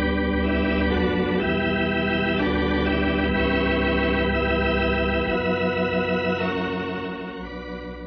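Organ music bridge marking a scene change in a radio drama: sustained chords with a wavering vibrato, shifting every second or so, then softening near the end.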